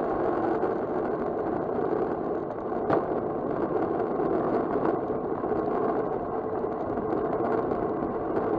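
Steady rush of wind and tyre noise on a bike-mounted camera as a road bicycle rides fast on asphalt, with a single sharp click about three seconds in.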